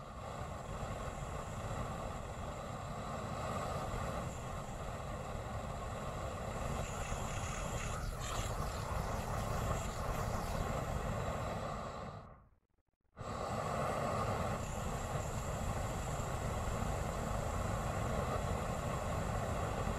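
Propane weed burner rigged as a flamethrower, its flame burning with a steady rushing noise, fed liquid propane from an upturned tank. The noise cuts out for about a second a little past the middle, then starts again.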